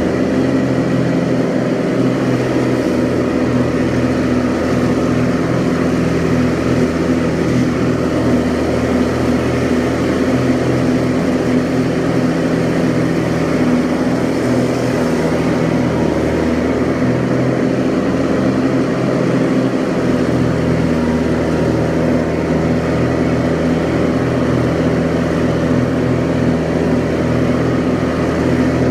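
Kubota G6200H lawn tractor's diesel engine running steadily while mowing tall grass.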